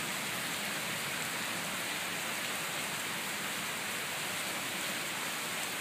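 Steady rain with floodwater runoff rushing over the ground, an even hiss that does not change.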